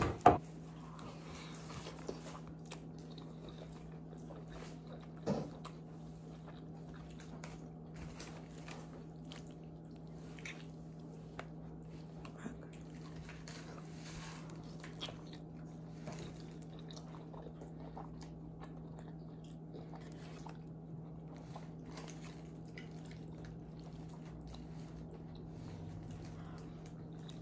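A person chewing and biting food while eating from takeout trays with a plastic fork, with many small clicks and rustles scattered throughout. A sharp knock comes right at the start and a thump about five seconds in, over a steady low hum.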